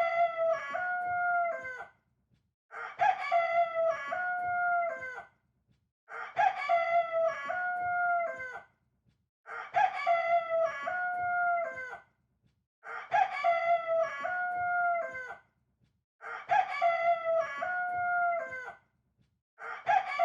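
Rooster crowing cock-a-doodle-doo over and over: about six identical crows, each some two and a half seconds long, repeating evenly every three and a half seconds or so with silence between.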